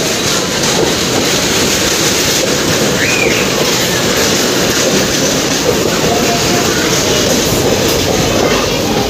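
A goods train of empty container flat wagons rolling past on the adjacent track, wheels clattering steadily over the rails. A brief high squeal comes about three seconds in.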